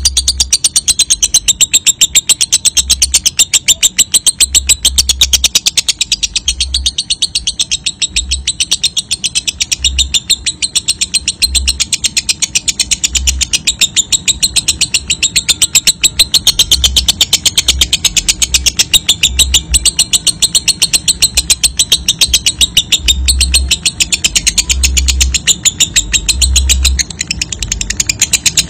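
Lovebird giving a long, unbroken 'ngekek' chatter: a shrill, rapid string of notes repeated many times a second, with low thuds now and then underneath.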